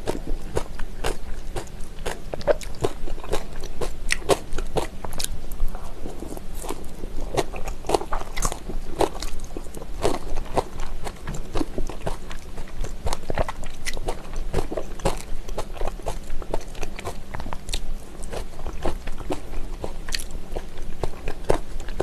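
Close-up chewing of spicy raw-oyster salad with crisp vegetable strips: a steady run of crunchy bites and wet clicks.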